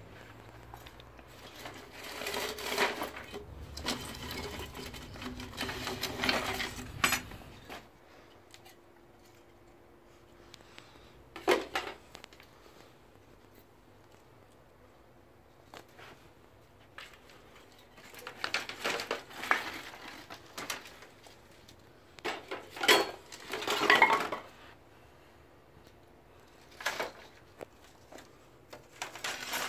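Wooden sticks, metal rods and a plastic pipe knocking, rattling and scraping in a plastic crate, in several bursts of clatter with quiet gaps between.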